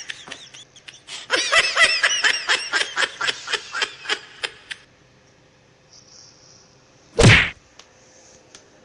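A person laughing in quick, high-pitched giggling bursts for a few seconds, then, after a pause, one short, loud burst of noise.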